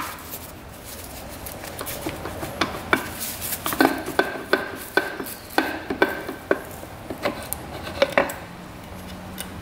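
Hand tools and metal engine parts clinking and clattering as a two-stroke dirt bike's clutch side is taken apart: a run of sharp metallic taps with short ringing, coming thickest in the middle of the stretch.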